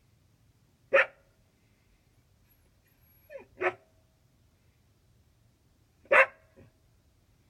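A dog barking in short single barks: one about a second in, a quick double bark in the middle, and one more near the end with a small second sound after it.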